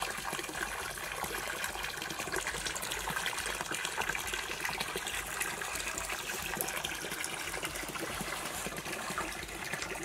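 Shallow muddy water splashing and trickling steadily, with many small clicks, as a plastic toy excavator is pushed through it by hand.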